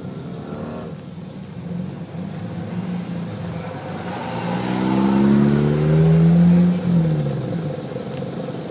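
Car engines of a slow convoy, running steadily, with one car accelerating past: its engine note climbs about four and a half seconds in, is loudest around six seconds, then drops away.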